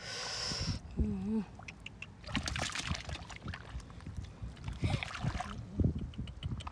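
Hands splashing and sloshing in shallow muddy water while grabbing catfish by hand, in several short bursts of splashing.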